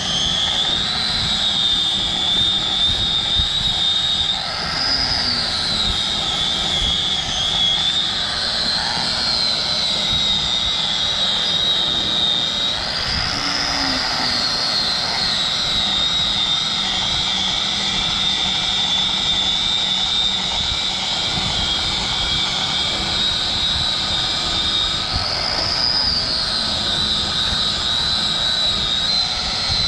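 Angle grinder with a tire-shaving disc cutting rubber from a tractor tire's lugs: a steady high whine over continuous grinding noise. The whine briefly rises in pitch three times.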